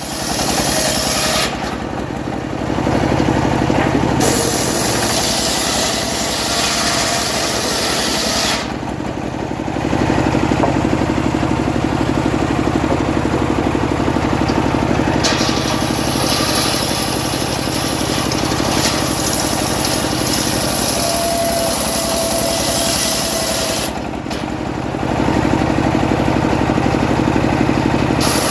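Homemade engine-driven circular saw running steadily while its blade cuts through teak. The high cutting hiss comes and goes in long passes, dropping briefly about a third of the way in and again near the end as the blade comes out of the wood.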